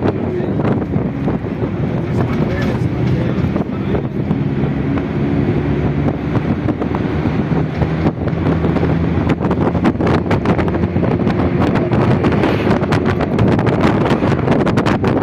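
A vehicle running, with wind buffeting the microphone and indistinct voices underneath. Many short knocks and rattles come in the second half.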